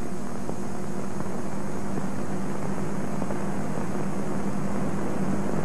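Steady low hum with even hiss from an old film soundtrack, unchanging throughout.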